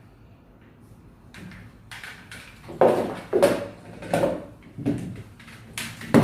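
Hard plastic waterproof power strips being handled and set down: a series of about six sharp clacks and knocks, starting about a second and a half in.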